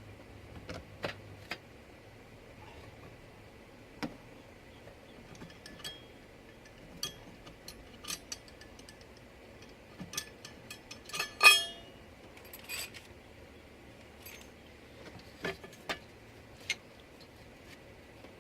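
Metal car parts clinking and knocking as they are handled and fitted, in scattered single clicks. A louder ringing metal clank comes about eleven seconds in.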